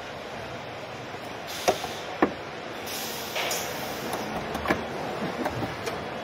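Car assembly-line ambience: a steady factory hum and hiss with a few sharp clicks and knocks of trim parts being handled and fitted inside the car body.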